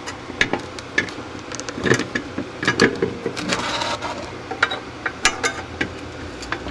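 Flat-blade screwdriver prying and scraping at the cut seam of a steel pancake-style refrigeration compressor shell: a quick irregular run of sharp metallic clicks and scrapes. The shell does not part, the seam perhaps not yet cut all the way around.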